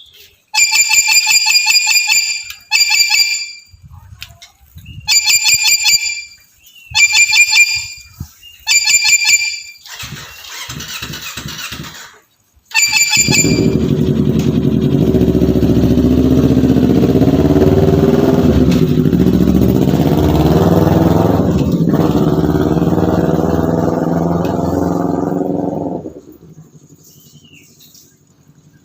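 Black-capped lory giving harsh, loud screeches in five short bursts over the first ten seconds. Then a loud, steady, low engine-like drone runs for about thirteen seconds and cuts off near the end.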